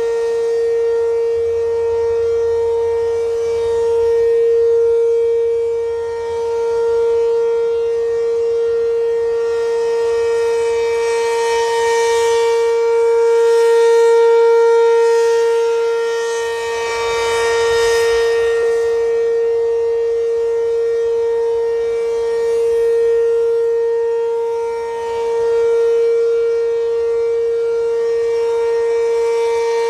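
ACA P-15 electromechanical warning siren sounding a steady alert tone: the pitch holds level while the sound swells and fades about every ten seconds as the siren head rotates.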